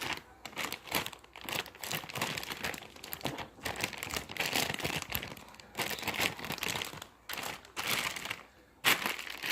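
Slime being squished and worked close to the microphone, making irregular crackling, crinkling noises in quick bursts with short pauses between.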